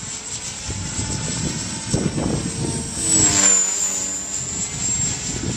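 EXI 450 electric RC helicopter (a T-Rex 450 clone) in flight, giving a steady high-pitched whine with rotor noise and a low rumble underneath. About three seconds in it swells and drops in pitch as it passes by.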